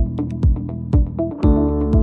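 Electronic background music with a steady beat: a low thump about twice a second under held synth chords and light high ticks, the chord changing about one and a half seconds in.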